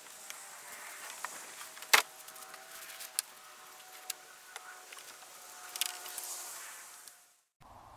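Plastic kayaks being turned over by hand on dry leaves: scattered knocks and bumps of the hulls, the loudest about two seconds in, with rustling of leaves, over a faint steady drone. The sound cuts off briefly near the end.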